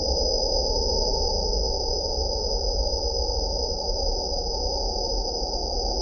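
Steady electronic hiss and low hum with a constant high whine, the sound of a faulty nest-box camera audio feed.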